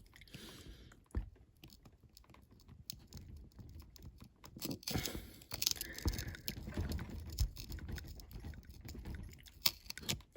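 Small metal tool clicking, tapping and scraping against a die-cast metal toy van body while working a tiny jewelled headlight out of its socket. The clicks get busier about halfway through.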